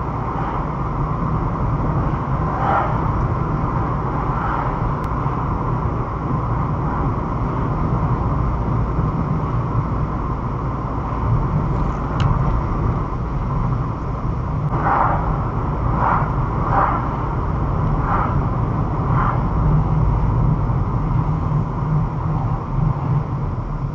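Steady engine and road rumble of a car heard from inside its cabin as it drives, stops briefly and pulls away. A handful of brief, higher sounds cut through, most of them in the second half.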